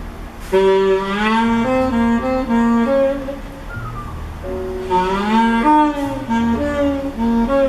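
Jazz music played back through a pair of vintage Sony SS-H12 loudspeakers being tested. A pitched melody comes in two phrases, each starting with a short upward glide, over a low bass line.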